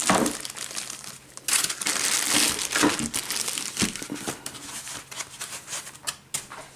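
Clear plastic film wrapped around a laptop crinkling in irregular bursts as the laptop is handled and the foam packing pieces are moved aside.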